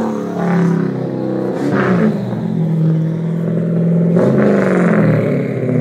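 Turbocharged Hemi V8 in a Ford F100 pickup running under way, its engine pitch rising and falling with the throttle, holding steady for a couple of seconds in the middle, then dropping off near the end.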